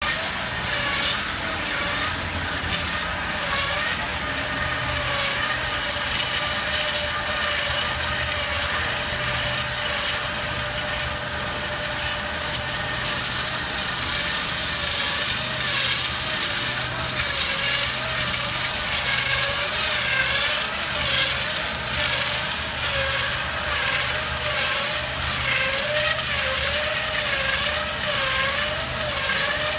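Wire saw cutting machine running and cutting. A steady machine whine wavers up and down in pitch, more strongly in the second half, over an uneven low motor hum.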